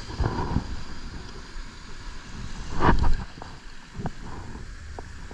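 Wind rushing across the microphone over the wash of breaking surf, loudest in a swell about three seconds in, with a few light knocks after it.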